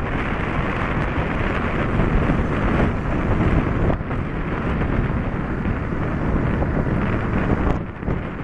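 Wind rushing over the microphone of a moving vehicle, with steady road and engine noise underneath; the wind briefly eases near the end.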